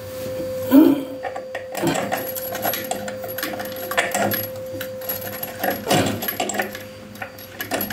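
Metal tool clinking and scraping against the faucet fittings under a washbasin as the new faucet is tightened down, in irregular small knocks and clicks over a steady hum.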